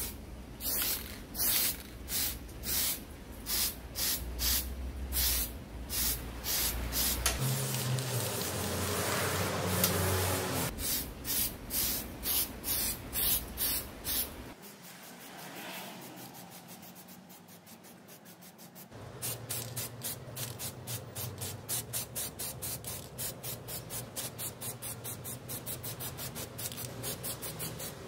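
Aerosol spray-paint can spraying in short repeated bursts, with one longer continuous spray about eight seconds in. The bursts come faster in the second half, paint going onto an angle grinder's plastic motor housing.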